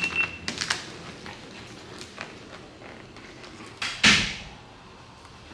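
Clear paint protection film crinkling and crackling as it is lifted and pulled back by hand off the wet hatch edge. A few sharp crackles come early, then one loud crackle about four seconds in.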